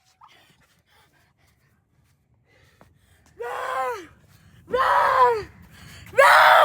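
Three high-pitched drawn-out cries, each rising then falling in pitch, coming in a row about a second and a half apart after roughly three seconds of near quiet.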